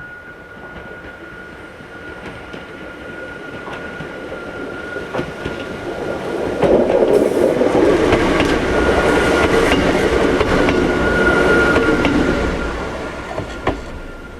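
Hakone Tozan Railway vintage two-car electric train, cars 110 and 108, approaching, passing close by and drawing away, loudest for about six seconds in the middle, with wheels clicking over the rail joints. A steady high tone, the level-crossing warning signal, sounds throughout.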